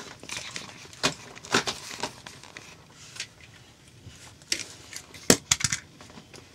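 Scattered clicks, taps and light rustling of things being handled and moved, with one sharper knock about five seconds in followed by a few quick ticks.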